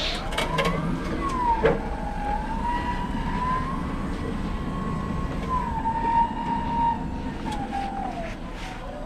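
Electric pallet truck's drive motor whining as it carries a loaded pallet, the pitch rising as it speeds up, holding steady while it travels, and falling as it slows near the end, with a few clicks and rattles.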